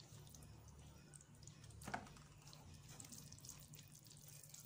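Near silence: a faint low hum with scattered faint ticks and one brief knock about two seconds in.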